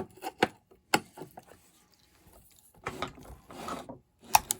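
Hand tools clicking and scraping on a chainsaw's housing while a screw is taken out. There are three sharp clicks in the first second, then softer handling, then two more sharp clicks near the end.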